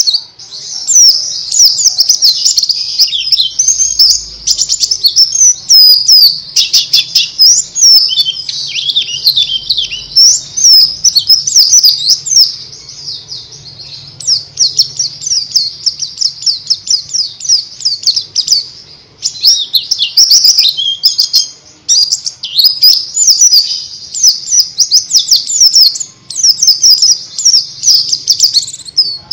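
White-eye (pleci) singing: a fast, rambling twitter of high notes that quickly rise and fall, almost without pause, easing off for a couple of seconds midway.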